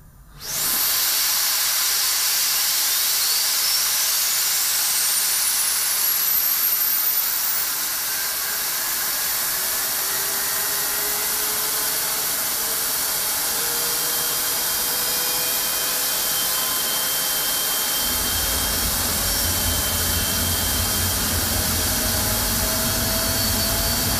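General Electric F110 afterburning turbofan starting up on a test stand. A loud rushing hiss comes in abruptly, and a high whine climbs steeply over the first several seconds as the engine spools up. A deep rumble joins about 18 seconds in, with exhaust smoke pouring from the engine as it runs.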